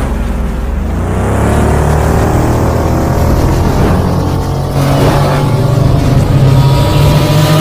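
Sound effect of a futuristic motorcycle engine revving and speeding along, its pitch rising about a second in and again around five seconds in, over a steady low rumble.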